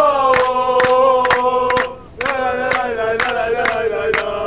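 Football supporters chanting loudly in unison, with sharp rhythmic beats about four times a second. The singing breaks off briefly about two seconds in, then picks up again.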